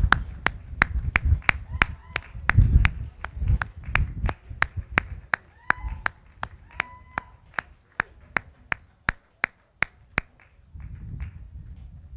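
Clapping in a steady rhythm, about three claps a second, stopping about ten seconds in. A few short high-pitched tonal calls sound over it around the middle.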